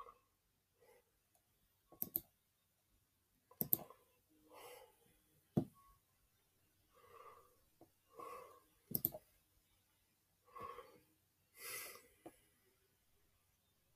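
Sharp clicks from working a computer, about five spread unevenly through the quiet, with faint soft murmuring sounds between them.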